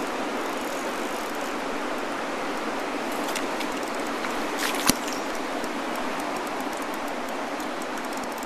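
Steady rush of flowing river water, with one sharp click just before the middle and faint, rapid ticking in the second half.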